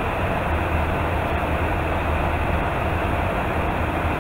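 Steady in-flight noise inside a refuelling tanker's boom operator station: a constant rush of airflow over a low, unchanging engine drone.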